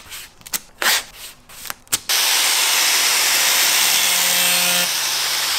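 A few quick rubbing strokes, as of a cloth wiping a panel clean. Then, about two seconds in, a handheld blower starts suddenly and runs with a loud, steady hiss over a low hum.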